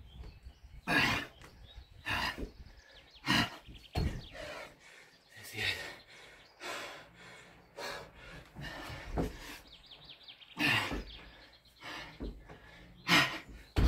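A person breathing hard after a set of 100 Navy Seal burpees: loud, rough exhalations every second or two, out of breath and recovering from exhausting exercise.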